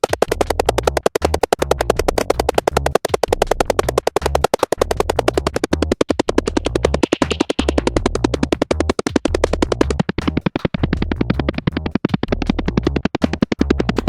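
Synthesized helicopter hovering sound effect: a rapid, even chop of rotor-like pulses over a low pulsing rumble. About ten seconds in, the highest frequencies drop away and the sound turns duller.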